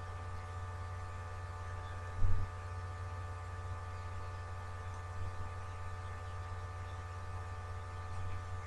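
Steady electrical hum, a low drone with a higher buzz of steady tones above it, with a single dull low thump about two seconds in.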